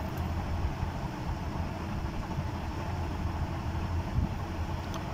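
Steady low background rumble, like room or mains hum, with no distinct events.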